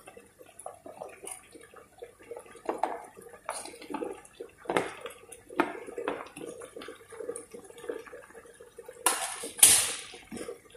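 Pumpkin cubes dropping with wet plops and knocks into a stainless steel pot of shrimp and chicken cooking in a little liquid, scraped off a glass dish with a spoon. Near the end a louder scraping burst comes as the pot is stirred with a wooden spoon.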